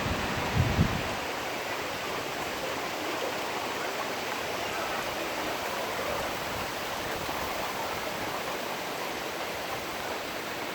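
Steady, even hiss of sleet falling, with no separate hailstone clicks. A couple of brief low thumps come just under a second in.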